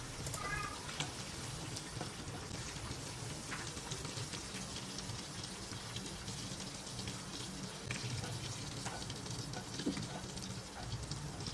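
Meatballs deep-frying in hot oil in a wok: a steady sizzle full of small crackles and pops.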